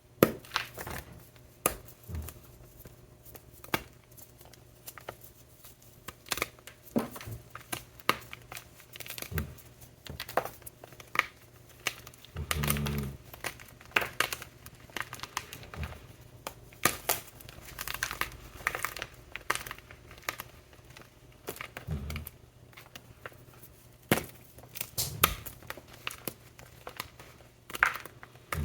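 ETHOS gym chalk blocks topped with shaving gel and glitter being crushed: irregular crumbly crunches and crackles with short pauses between.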